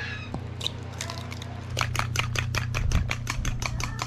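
Eggs being beaten in a white ceramic bowl: a utensil clicks against the bowl in quick, even strokes, about five or six a second, starting a little under two seconds in. A steady low hum runs underneath.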